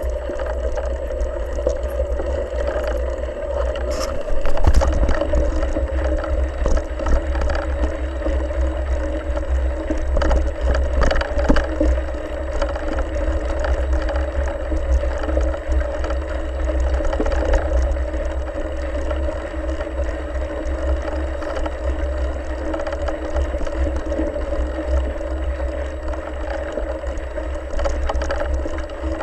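Bike riding fast over a leaf-covered dirt trail, picked up by a handlebar-mounted camera: a continuous rumble of wind and vibration, with a steady hum under it and constant rattles and knocks from bumps, the strongest jolts about four to five seconds in and again around ten to twelve seconds.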